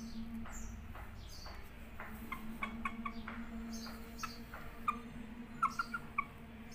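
A white rooster making short, soft chirps and clucks, sparse at first and coming in quick clusters in the second half, over a steady low hum.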